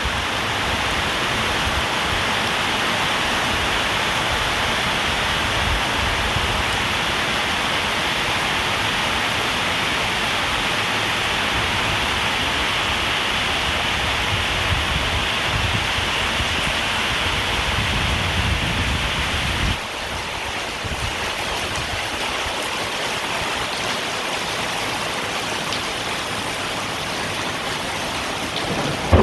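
Heavy rain pouring down, a steady even hiss of downpour. About two-thirds of the way through it drops a little quieter and duller.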